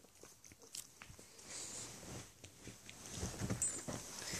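Cavalier King Charles spaniel puppy shifting about on a fleece dog bed and blanket, with soft fabric rustling and a low grumbling noise from the puppy about three seconds in.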